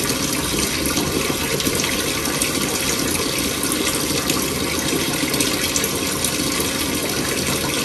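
Steady rush of running water, as from a kitchen tap left on.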